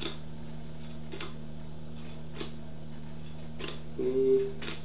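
Playing cards being turned over one by one from two piles and laid down on a cloth-covered table: a soft click about every second over a steady electrical hum. About four seconds in there is a brief, louder low hum, like a hummed voice.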